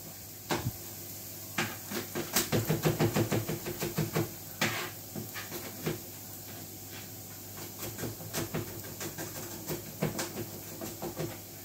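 Kitchen knife chopping garlic on a cutting board: a quick run of strokes about two seconds in, then scattered taps later on, over a steady low hum.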